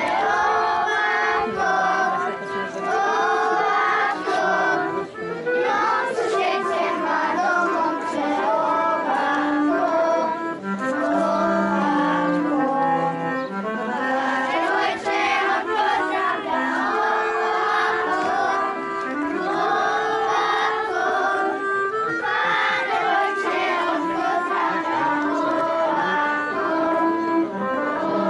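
Serbian folk dance music playing for a kolo, steady and unbroken, with voices singing along.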